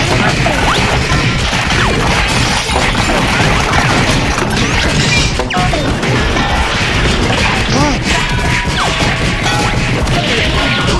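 A beating-up sound-effect track: a dense, unbroken jumble of whacks, smashes and crashes layered over one another. Short rising-and-falling tones are mixed in throughout.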